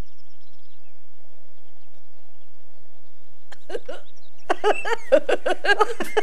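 A hush of about three and a half seconds as the players hold still, then a short stifled snicker, and from about four and a half seconds in, several people burst out giggling and laughing.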